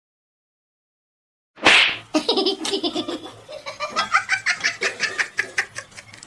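Silence at first, then, about a second and a half in, a sudden loud noisy burst. It is followed by a person laughing hard in quick repeated bursts.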